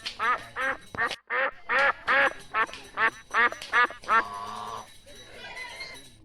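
Domestic ducks quacking: a rapid run of about a dozen loud quacks, roughly three a second, ending about four seconds in with one longer call, followed by a few fainter quacks.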